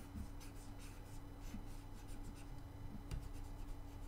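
Pen stylus scratching on a Wacom graphics tablet in short strokes while sculpting, with a sharper tap about three seconds in, over a faint steady low hum.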